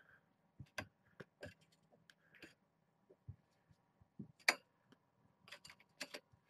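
Irregular light clicks and taps, well over a dozen, scattered unevenly; the loudest comes about four and a half seconds in.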